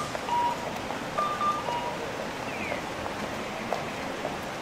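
Steady rain hiss with scattered light taps and a few brief high tones.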